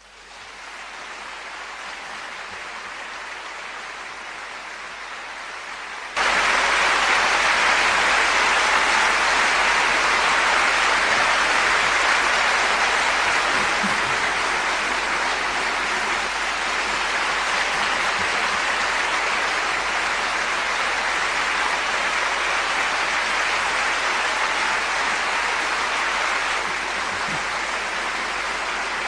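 Large audience clapping in sustained applause, a dense steady patter of many hands. It fades in at the start and jumps suddenly louder about six seconds in.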